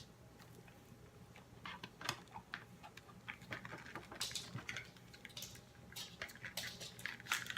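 Scattered light clicks and taps of hands handling a plastic-packaged die-cast action figure, sparse at first and more frequent from about two seconds in.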